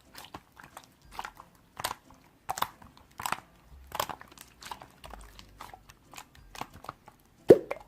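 A series of short, soft clicks or taps at an uneven pace of about one or two a second, with a louder click near the end.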